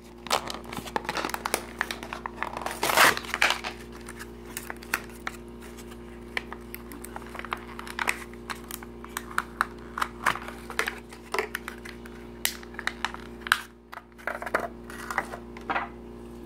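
Thin clear plastic packaging crinkling and crackling as it is handled and pulled open, in quick irregular crackles that are loudest about three seconds in.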